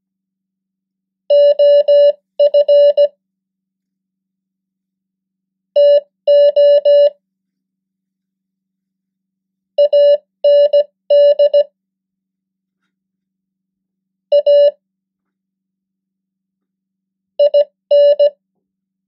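Morse code (CW) practice tone sending common English words at 15 words per minute: a single steady beep keyed in dots and dashes, five short words with pauses of a few seconds between them.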